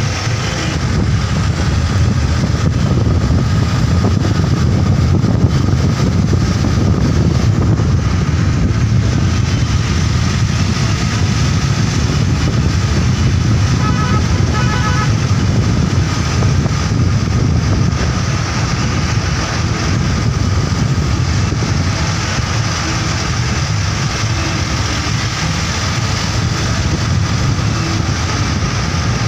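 Steady road and wind noise from a moving vehicle on the road, a loud continuous rumble that stays even throughout.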